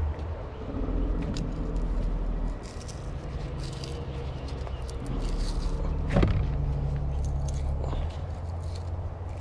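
Excavator engine running, its note shifting a few times as the hydraulics move the bucket linkage to line up the pin, with light clicks and one sharp metal clunk about six seconds in.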